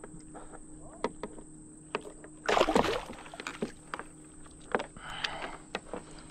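Water splashing at the side of a plastic kayak with a hooked golden dorado at the surface, mixed with sharp knocks and clicks of gear against the hull. The loudest splash comes about two and a half seconds in, a smaller one around five seconds.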